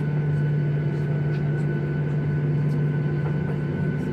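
Boeing 737-800's CFM56-7B jet engines running steadily, heard from inside the cabin over the wing as the plane rolls slowly on the runway: a constant low hum with a thin high whine over it.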